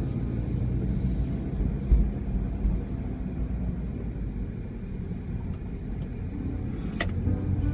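Car driving slowly, a steady low road and engine rumble heard from inside the cabin, with one thump about two seconds in and a sharp click near the end.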